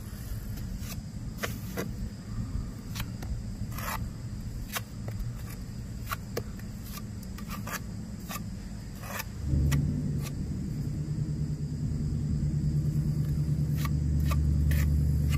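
An engine running steadily nearby; about ten seconds in its hum turns louder and steadier. Light clicks and scrapes of a steel trowel working mortar onto a stone come through over it.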